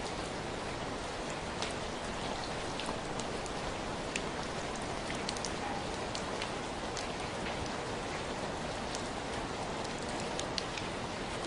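Steady rain falling, with individual drops ticking sharply and irregularly close by.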